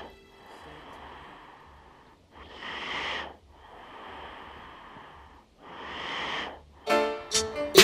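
Heavy breathing: long, drawn breaths about three seconds apart, with a fainter rushing hiss between them. About a second before the end, music comes in with sharp hits and a held chord.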